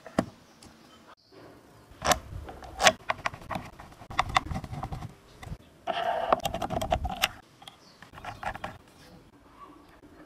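Sharp clicks, knocks and rattles of a hand working a small machine's sliding carriage on its steel guide rods and pressing its lever microswitches. Scattered clicks start about two seconds in, and there is a denser rattle about six seconds in.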